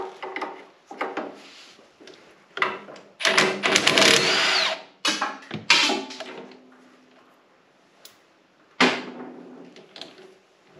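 A hand-held power tool, a drill by the sound, runs in two short bursts, with sharp knocks and clatter of tools and parts around them and one hard knock near the end.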